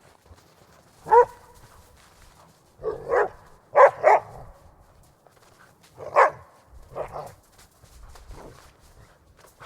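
Border Collie barking in short, sharp barks in irregular groups: one bark, then two quick pairs, then a few more spaced out, the last one weaker.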